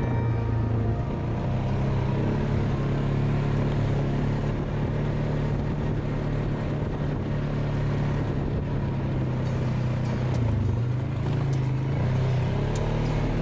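ATV engine running steadily under way on a sand and dirt trail, its low hum wavering slightly with the throttle over tyre and trail noise. A scatter of light clicks and ticks comes in over the last few seconds.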